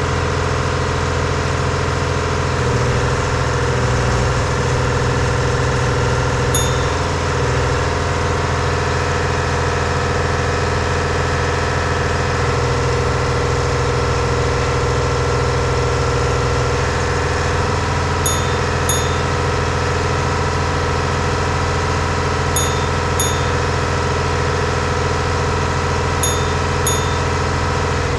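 Diesel engine of a 1978 Hein-Werner 25-ton excavator running steadily at constant speed. Short, sharp ticks come in pairs a little over half a second apart, several times in the second half.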